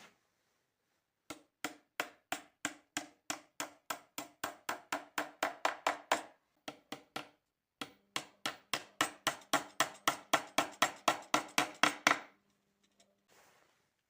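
Hammer blows on wood: two runs of quick, even strikes, about three a second, growing louder through each run, with a pause of about a second and a half between them.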